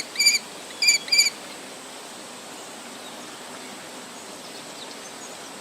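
Kestrel giving rapid, high-pitched kee-kee alarm calls in two quick bursts in the first second and a half, defending the nest entrance against an intruding jackdaw. After that there is only a steady faint hiss.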